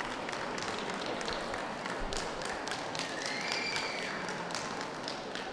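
Scattered audience clapping, irregular sharp claps over the steady hum of a large, busy hall.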